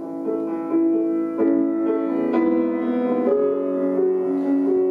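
Piano accompaniment playing sustained chords, with a new chord struck about once a second.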